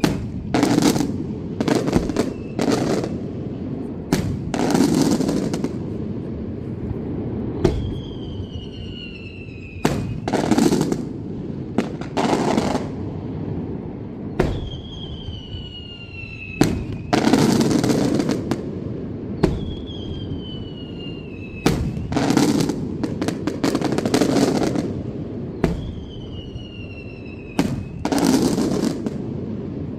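Daylight aerial fireworks shells bursting in a steady barrage of loud bangs, each followed by a rolling echo. After several of the bangs a whistle falls in pitch over a couple of seconds.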